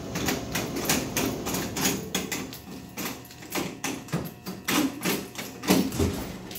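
Irregular clicking and clattering of keys, lock and latch as a vending machine's door is opened to reach the coin mechanism. The clicks come thickly at first, then thin out into separate, louder knocks.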